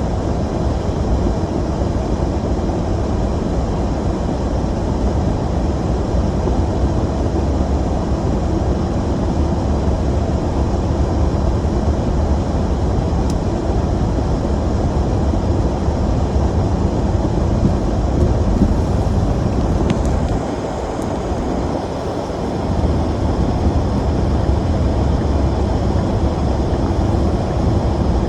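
Vehicle running with a steady low rumble that dips briefly about twenty seconds in.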